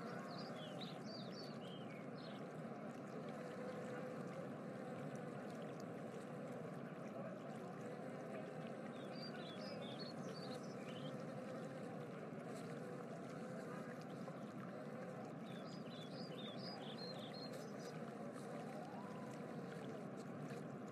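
Faint, steady rushing background noise, with three short spells of high chirps: one near the start, one in the middle and one past the two-thirds mark.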